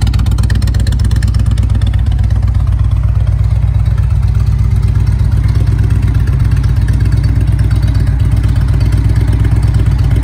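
2016 Indian Roadmaster's Thunder Stroke 111 V-twin engine idling steadily with an even low pulse.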